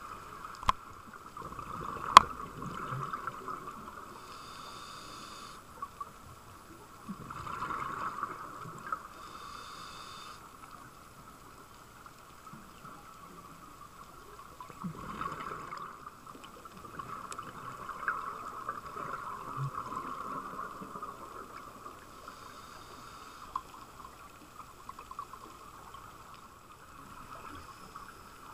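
Underwater sound of a scuba diver's breathing: bursts of exhaled bubbles gurgling every few seconds over a steady hum. Two sharp knocks come near the start, the second, about two seconds in, the loudest sound.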